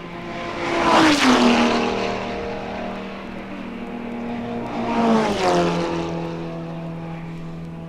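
Two racing cars pass at speed, about a second in and again about five seconds in, each engine note dropping in pitch as it goes by. A steady engine drone holds underneath.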